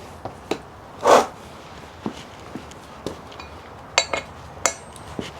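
Metal hand tools and motorcycle parts being handled: scattered clicks and knocks, a louder short clatter about a second in, and two ringing metal clinks about four seconds in.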